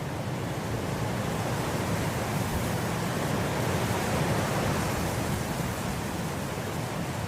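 Wind blowing through grass, a steady rushing that swells gently around the middle and eases a little toward the end.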